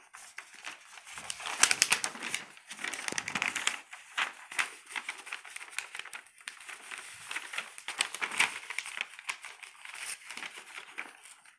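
Paper being handled and crinkled close to the microphone: scratchy rustling with many small crackles, coming in uneven bursts.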